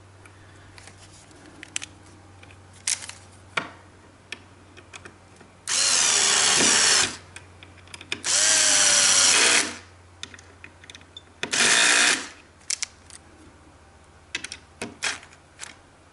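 Cordless drill driving screws into a keyboard stand's bracket in three short runs, the last one briefly, its motor pitch shifting as the screw loads it. Light clicks and knocks of parts being handled come between the runs.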